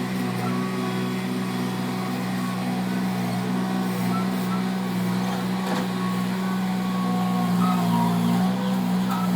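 Skid steer's diesel engine running steadily under work, its hum briefly a little louder about eight seconds in.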